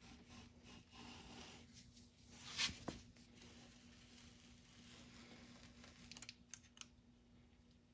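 Quiet handling noise of hand work on hydraulic cylinder parts: faint scrapes and clicks, with one louder scrape about a third of the way in and a few light clicks near the end.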